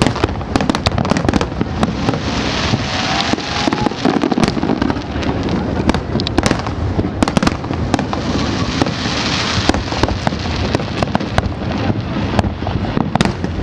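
Fireworks display: a dense, continuous run of bangs and pops, with two swells of hissing crackle, one a couple of seconds in and another about two-thirds of the way through.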